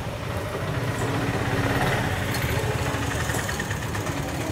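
An engine running steadily at idle, a low even drone.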